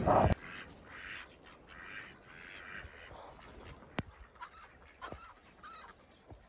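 Farm poultry calling: a run of hoarse, honking calls over the first few seconds, then a few shorter, higher calls. A brief loud rustle cuts off just after the start, and a sharp click comes about four seconds in.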